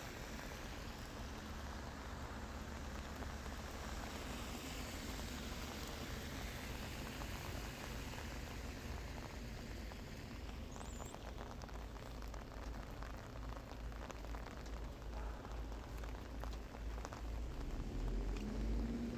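Rain falling, a steady hiss with a low rumble beneath, and from about halfway in many separate drops ticking. Near the end a low hum comes in, rising in pitch.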